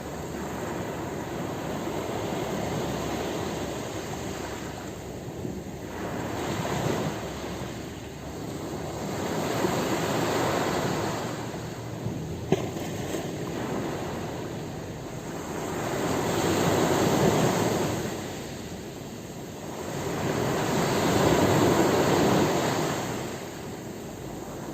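Ocean surf breaking on a beach, a steady rush of water that swells and eases every four seconds or so as waves come in, the biggest surges near the end. A short click sounds about halfway through.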